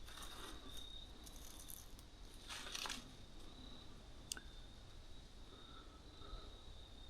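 Crickets trilling steadily in one high, wavering tone. Three brief crunching rustles come in the first three seconds, and one sharp click about four seconds in.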